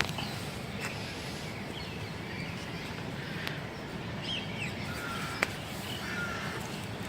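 Short high chirps over a steady background hiss, with a few sharp clicks, the loudest about five and a half seconds in.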